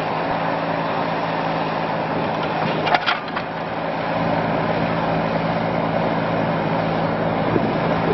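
Kubota K008-3 mini excavator's small three-cylinder diesel engine running steadily while the boom and bucket are worked, with a brief clatter about three seconds in.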